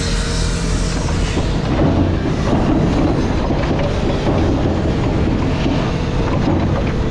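Sierra scrap crusher running at the scrap yard: a steady low engine drone with continuous metallic clattering and clanking over it.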